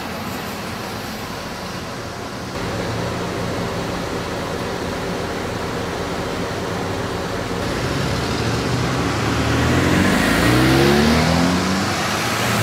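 Road traffic noise, with a car accelerating past about two-thirds of the way through, its engine rising in pitch and growing louder.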